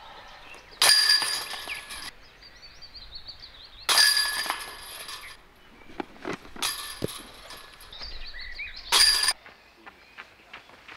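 Disc golf discs striking the hanging metal chains of a basket, four times: each hit gives about a second of bright, jingling chain rattle, the last one shorter. Faint bird chirps in between.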